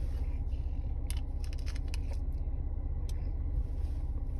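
Steady low rumble of a car's cabin, with a few light clicks and rustles, mostly between one and two seconds in and once more around three seconds.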